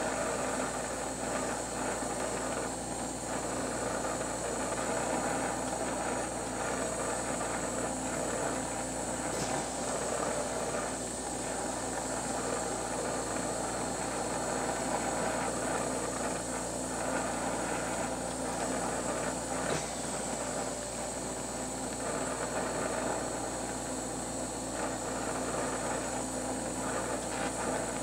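Steady hiss of a glassworking bench torch flame as glass is heated and patterned in it, with a low steady hum beneath.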